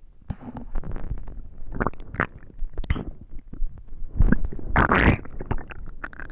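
A hungry, empty stomach growling and gurgling in an irregular run of rumbles and squeaky gurgles, loudest about four to five seconds in.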